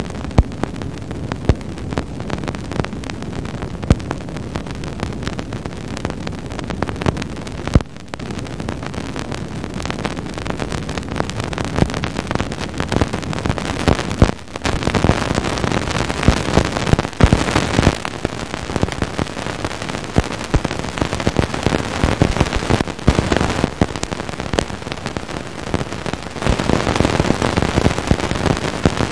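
Cassini radio and plasma wave instrument data turned into sound: dense crackling and popping over a steady hiss as the spacecraft crosses Saturn's ring plane. Each pop is a tiny ring dust particle striking the spacecraft's antennas. The crackle swells louder twice, about halfway through and near the end.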